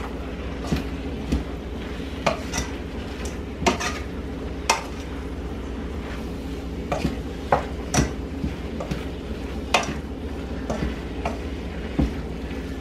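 A wooden spoon stirring chicken and broccoli in a ceramic-nonstick skillet, knocking and scraping against the pan at irregular intervals, over a steady low sizzle of the food frying.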